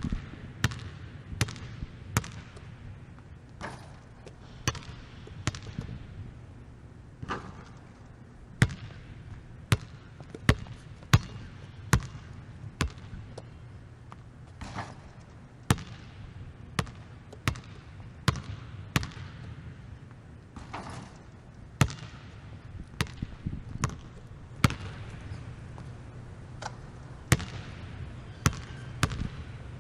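Basketballs bouncing on a gym floor during practice: sharp, irregular bounces about one or two a second, some close together, ringing a little in the hall over a steady low hum.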